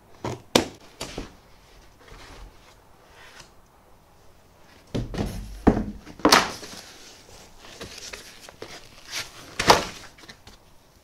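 Scissors snapping through plastic strapping bands on a cardboard shipping crate, a few sharp snips in the first second or so; then the crate's cardboard lid scraping and thudding as it is lifted off, and a foam packing sheet being pulled out near the end.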